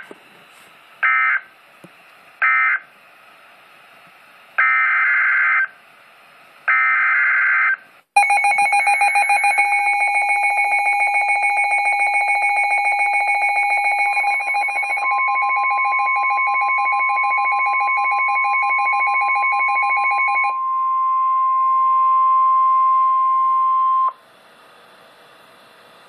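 NOAA Weather Radio emergency alert tones: a string of EAS digital data bursts, three short then two longer, followed by a weather alert radio's fast-pulsing alarm beeping for about twelve seconds. From about halfway it is overlapped by the steady 1050 Hz warning alarm tone, which carries on alone and cuts off about two seconds before the end.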